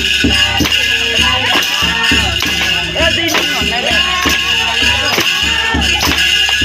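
Folk dance music with a steady beat: drums and rattling hand percussion under a wavering melody line.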